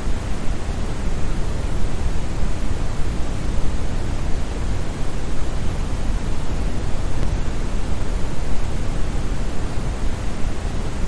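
Steady synthetic brown noise: an even, deep hiss weighted toward the bass, with no changes or events.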